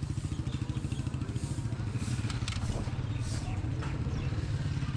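Small motor vehicle engine running steadily close by with a fast, even low pulse, with a few sharp clicks about halfway through.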